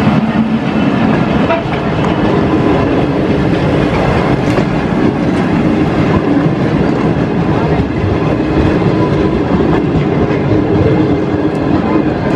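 Pakistan Railways passenger coaches rolling past at close range: a steady rumble and clatter of steel wheels on the rails.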